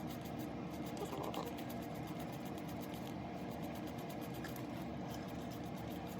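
A steady low background hum with no distinct events.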